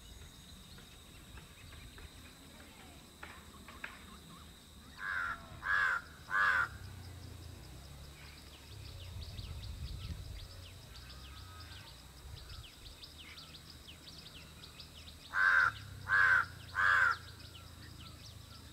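A crow cawing: three harsh caws in quick succession about five seconds in, and another three near the end. Fainter chirps of small birds run underneath.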